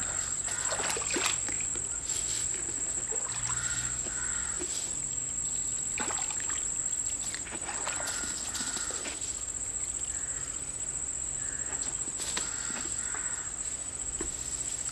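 Outdoor pond ambience: a steady high-pitched insect drone, with faint short calls and a few soft knocks and splashes of water.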